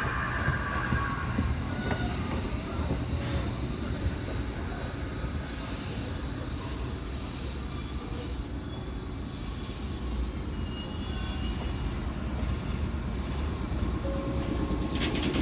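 JR 415 series electric train running on the line: a steady low rumble of wheels on rail. A high squeal falls in pitch and fades in the first second or two.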